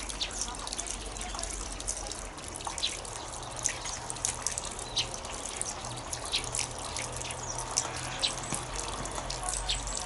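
Sparrows chirping: short, sharp chirps at irregular intervals, several close together at times, over a low steady hum.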